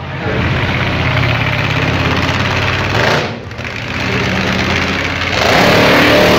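Monster truck engine running loud, easing off briefly about three seconds in, then climbing to a louder, fuller run near the end.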